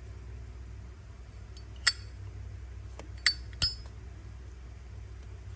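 A Zippo lighter being handled, giving three sharp metallic clicks: one about two seconds in, then two close together about a second and a half later.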